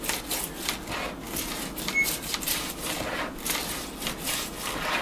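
Soft-bristled toothbrush scrubbing the teeth of a circular saw blade wet with an ammonia-and-water mix, in quick repeated strokes, about three or four a second. The pitch is coming off easily because it has soaked.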